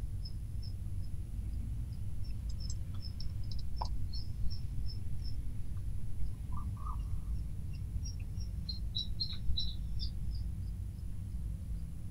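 Room tone with a steady low hum. Over it runs a string of short, high chirps, two or three a second, and a few soft clicks, one about four seconds in.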